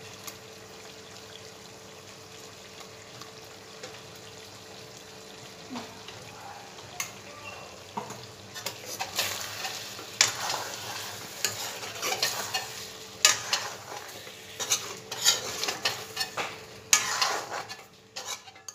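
Chicken with onion-cashew paste frying in a kadai with a steady low sizzle; from about eight seconds in a steel spoon stirs and scrapes it round the pan in quick irregular strokes.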